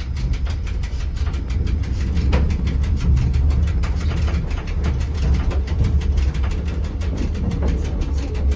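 Rigi mountain train running on the rack line, a steady low rumble with a rapid, even clicking.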